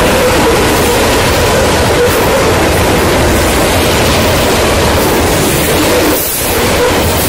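Freight train passing close by: the last of three diesel locomotives, then a string of covered hopper cars rolling over the rails, a loud, steady noise that dips briefly about six seconds in.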